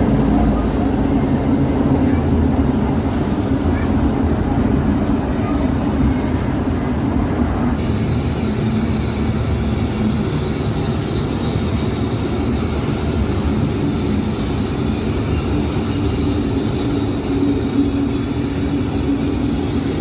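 Diesel engine of a G22W-AC diesel-electric locomotive running steadily, with a strong low hum.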